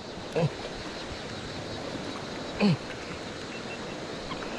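Steady rush of flowing river water, with two short voice sounds breaking through, one about half a second in and one a little past the middle.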